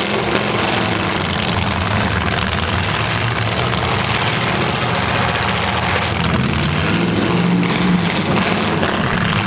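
Demolition derby cars' engines running loud and steady, one revving up about two-thirds of the way through.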